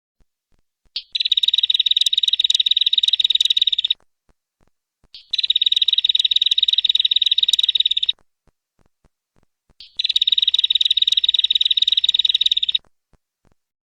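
Tailorbird (Orthotomus) calling: three long, rapid trills, each opened by a short note and lasting about three seconds, about four seconds apart.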